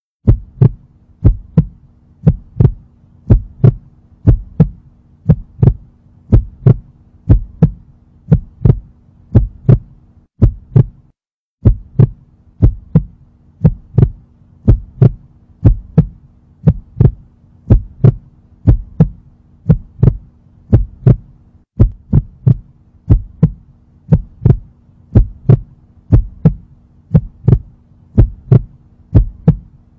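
Heartbeat sound effect: steady, evenly repeating low thumps, a little under two a second, over a steady low hum. The beat stops briefly about ten seconds in.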